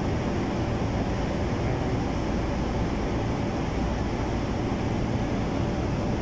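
A steady, even mechanical hum with a low rumble, like a ventilation or air-conditioning unit running.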